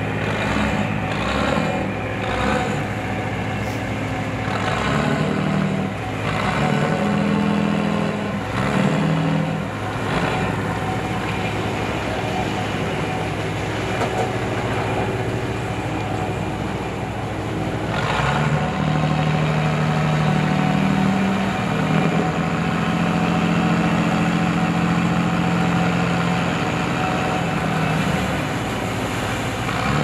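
Riverboat engines running at night on the river: a steady low drone, joined about eighteen seconds in by a second, higher engine note as a smaller boat runs alongside.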